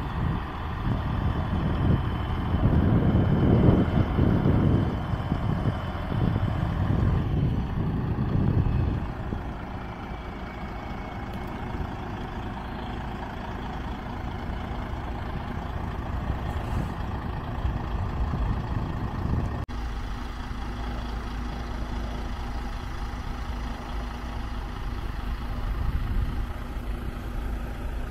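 Heavy truck engine running, louder for the first nine seconds or so, then settling into a steadier, quieter rumble.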